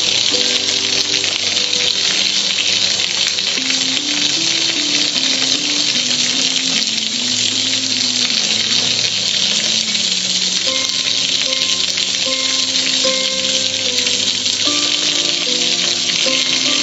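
Water pouring and splashing down over a gas grill's lid and control panel, a steady hiss of splattering water. A tune plays softly underneath.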